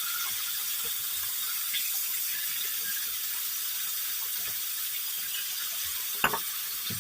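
Beef steak sizzling in hot oil in a frying pan: a steady hiss, with one sharp click or tap about six seconds in.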